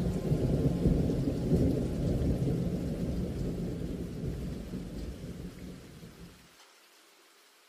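Thunder rumbling over rain, part of the soundtrack rather than the tank, fading steadily and gone about six and a half seconds in.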